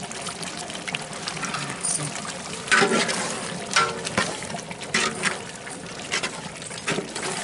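Water poured in a steady stream into a large aluminium pot of chicken masala, splashing into the gravy as the water for the biryani is added. A few sharp knocks, metal on metal, sound against the pot along the way.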